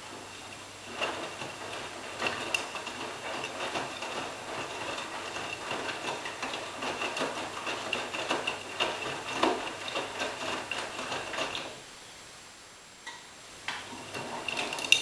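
AEG Lavamat 86760 front-loading washing machine in its wash phase. The drum starts turning about a second in, with wet laundry sloshing and tumbling under a steady high motor whine. It stops about twelve seconds in and starts turning again near the end.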